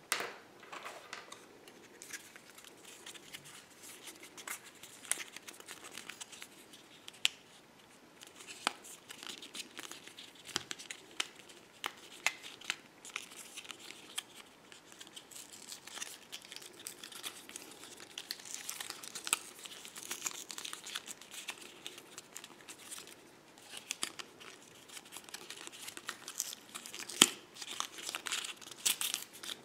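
Paper and plastic packaging crinkling and tearing as the EarPods are unwrapped from their card holder: irregular rustles and sharp crackles, with one louder snap near the end.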